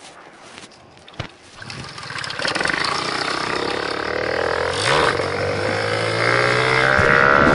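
Motobecane moped's small two-stroke engine coming in about a second and a half in, after a stretch of low road and wind hiss and one sharp click. It then runs harder, growing louder and slowly rising in pitch as the moped speeds up.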